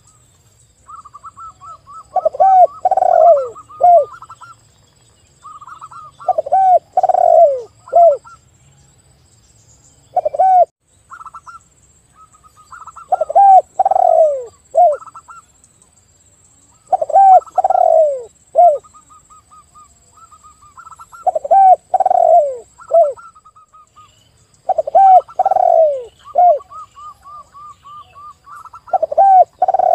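Spotted dove and zebra dove calling. Loud falling coos come in phrases of three or four notes about every four seconds, with quieter, quicker runs of higher notes between them.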